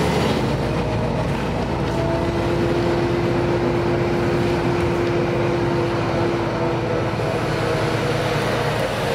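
Heard from inside the cabin, a Heuliez GX 317 city bus's diesel engine and driveline run steadily under road rumble. A steady whine sounds from about two seconds in.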